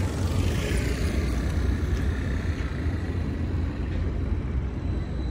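Steady outdoor background noise: a continuous low rumble with a fainter hiss above it, like distant traffic and wind on an open waterfront.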